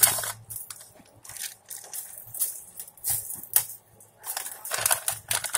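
Plastic bag of shredded cheese crinkling as it is shaken and handled over a foil pan, in irregular short rustling bursts.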